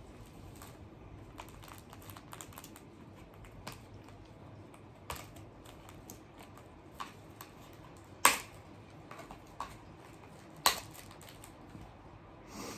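Tags being pulled and snipped off dog toys: scattered light clicks and ticks, with two sharper snaps in the second half.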